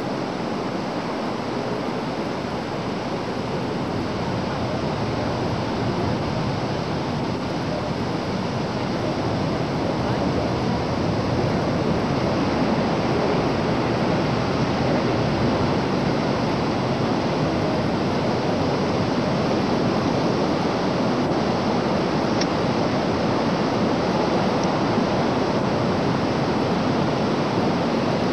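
Steady rushing noise with no distinct events, slowly growing louder through the first half.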